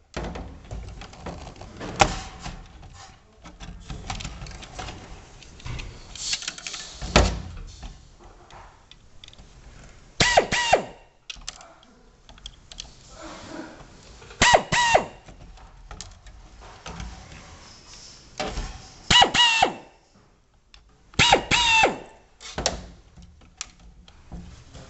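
Screws being taken out of a set-top box's case with a Phillips screwdriver: scattered clicks and knocks, with four short pitched squeaks, each one doubled, a few seconds apart.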